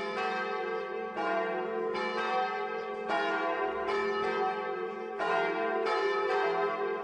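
Church bells ringing, with a new stroke about once a second over the long, steady hum of the earlier strokes.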